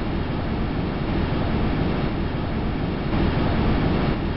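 Steady, deep rushing noise of strong wind: the Huygens probe's recording of Titan's atmosphere made during its descent.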